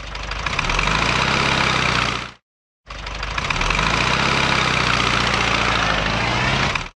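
Sports car engine sound effect, in two bursts: the first lasts about two seconds and the second, after a brief gap, about four. Each swells in level as it starts, then holds steady.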